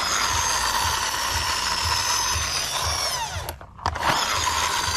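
Flywheel of a friction-powered toy fire truck whirring with a steady high whine as it is pushed along artificial turf to spin it up. The whine falls in pitch and dies away about three seconds in, then starts again as the truck is pushed once more.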